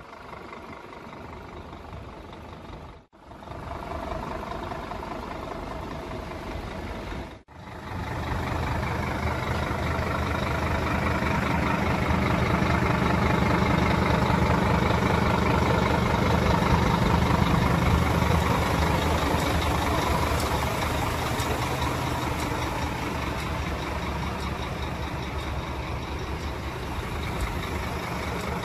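Scania G320's nine-litre five-cylinder diesel engine idling steadily, with two brief gaps in the first eight seconds, growing louder in the middle and easing off a little near the end.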